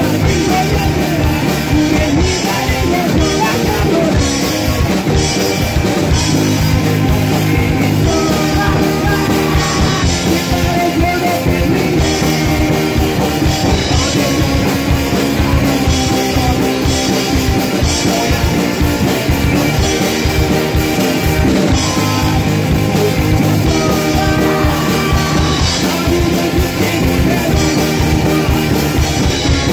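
Punk rock song played by a full band at a steady loud level, with a voice singing in Korean over electric guitar and drums.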